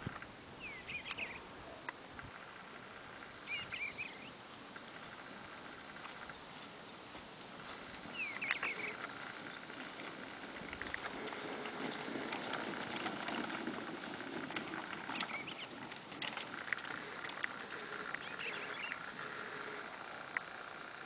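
A horse's hoofbeats on soft arena dirt, with the wheeled Hot Heels roping dummy dragging and rattling over the ground behind it. The dragging and rustling grow louder about a third of the way in. Birds chirp briefly several times.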